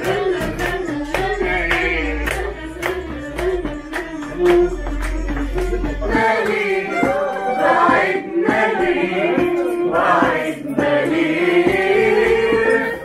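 Live singing in a café: a wavering vocal melody with more voices joining in, and sharp, regular taps keeping time through the first half.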